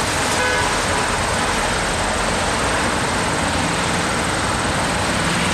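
Highway traffic passing below: a steady, unbroken rush of tyre and engine noise.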